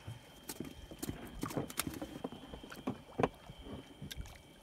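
Irregular hollow knocks and clicks in a small boat, more than a dozen spread unevenly over a few seconds, with one louder knock about three seconds in.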